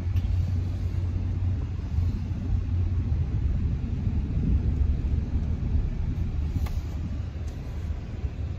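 Steady low rumble of a vehicle running, heard from inside the car's cabin, with a faint click about two-thirds of the way through.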